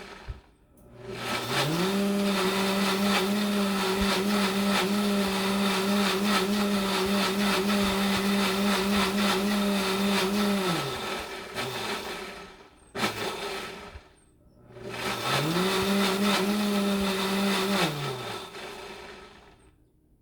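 Breville Bluicer blender motor blending thick tomato-based barbecue sauce on its smoothie program. It spins up about a second in, runs steadily for about nine seconds and winds down. After a short pause it spins up again for a shorter run of about three seconds and winds down.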